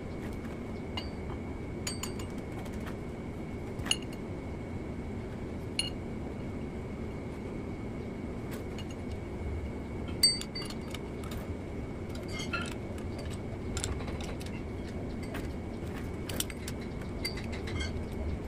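Scattered metallic clicks and clinks of a wrench and steel parts as bolts are fitted on a Caterpillar 3406 engine block's timing plate, the sharpest about ten seconds in. A steady low hum with a faint high whine runs underneath.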